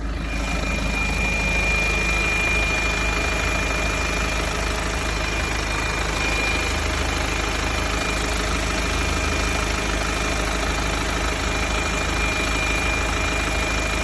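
BMW 2.0-litre diesel engine idling hot, with a steady high-pitched whistle held at one pitch over the engine's even running; the whistle is the fault that appears only once the engine is warm.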